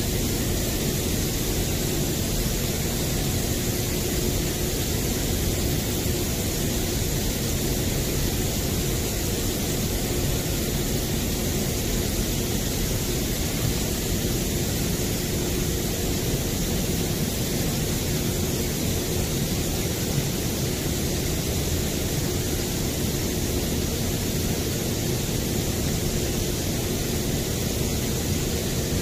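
Steady hiss of a misting system spraying fine fog from overhead nozzles, over a low, even rumble of machinery.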